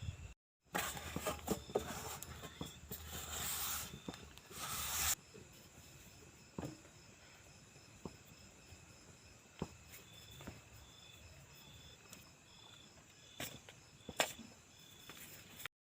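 Insects, crickets among them, chirping in a steady high pulsing rhythm, with rustling and handling clicks during the first few seconds and a few scattered clicks later.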